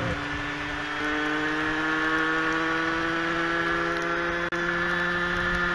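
Small two-stroke supermoto engine running at high, nearly steady revs while riding, a buzzing note that drifts slightly up in pitch, over wind and wet-road noise.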